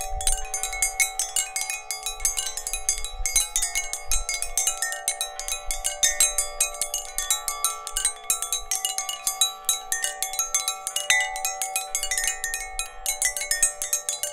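Metallic chimes ringing continuously: quick, irregular, overlapping strikes over several long-held tones.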